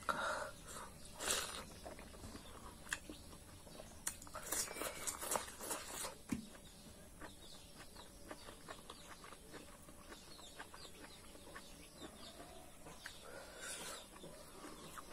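Close-up eating sounds: wet chewing and lip-smacking, with irregular mouth clicks, from a person eating rice and curry by hand.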